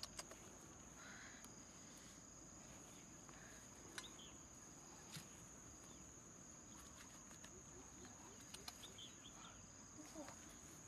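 Faint insect song: one steady high tone that does not change, over low outdoor hiss, with a few soft sharp clicks, the clearest about four seconds in.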